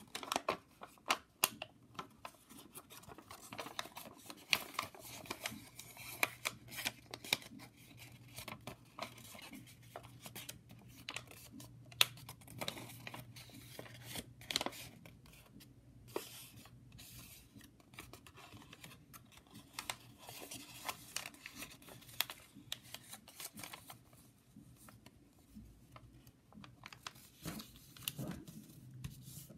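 Sheet of origami paper being unfolded and creased by hand: irregular crisp crackles and rustles as the paper flexes and the folds are pressed down.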